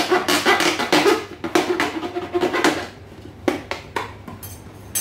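Kitchen knife cutting through a thin plastic soda bottle: a dense, squeaky crackling of the plastic for about three seconds, then a few separate crinkles as the cut pieces are handled.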